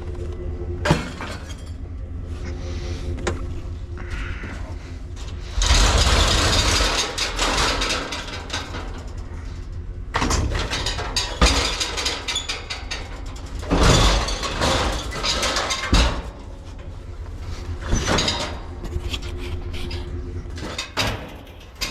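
Junk being handled and tossed out: repeated clattering and rustling bursts over a steady low hum.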